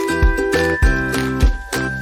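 Background music with a steady beat and bright chiming notes.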